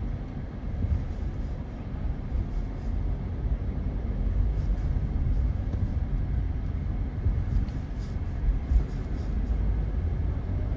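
Steady low rumble of a vehicle driving along a road: engine and tyre noise.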